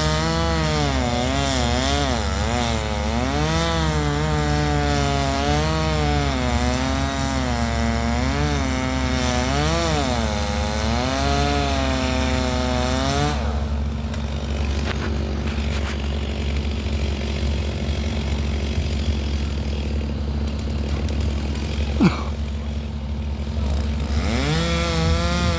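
Chainsaw cutting a willow trunk: its engine pitch wavers up and down under load for about thirteen seconds, then drops away, leaving a low steady hum. There is a single sharp knock about 22 seconds in, and the saw revs up again near the end.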